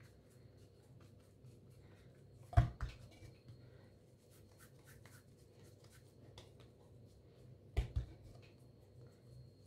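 Hands rolling and pressing pieces of chebakia dough into balls on a plate: faint rubbing and light ticks, with a sharp knock about two and a half seconds in and a double knock near the end.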